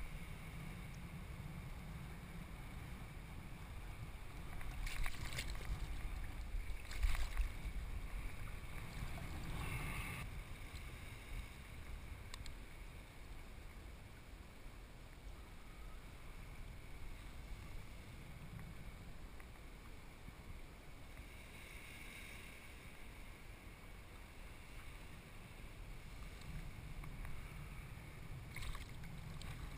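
Wind rumbling on the microphone, with several bursts of water splashing as a hooked bream thrashes at the surface in shallow water. Three splashes come close together early on, then smaller ones later.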